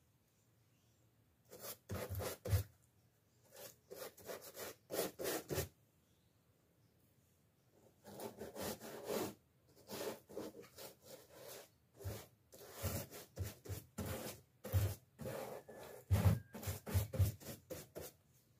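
A paste brush rubbing and scraping in quick short strokes, stirring and loading flour paste (engrudo) in a plastic tub and spreading it on paper. The strokes come in runs, with a pause of about two seconds near the middle.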